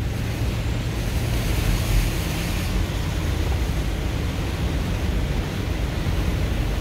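Steady cabin noise of a car driving on a rain-soaked road: a low rumble of engine and tyres under a hiss of water spray and rain. The hiss swells briefly about two seconds in.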